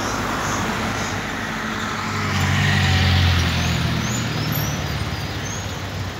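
Slow-moving city street traffic: cars running past at low speed, with a deeper engine hum swelling about two seconds in and fading again as a heavier vehicle passes close.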